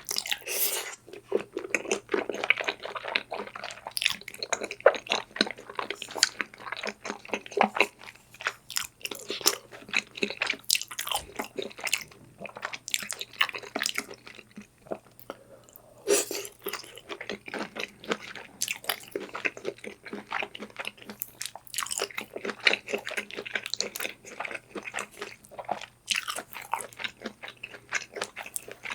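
Person eating close to the microphone in ASMR style: steady chewing and biting, with crisp crunches and clicks throughout and a short lull about halfway.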